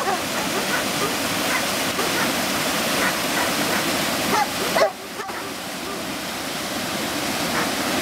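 Small waterfall on a stream rushing steadily over a rock ledge, with dogs barking repeatedly over it; the loudest bark comes nearly five seconds in.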